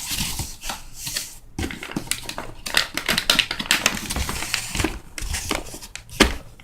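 Cardboard firework cake boxes and their packaging being handled: irregular rustling, scraping and light knocks.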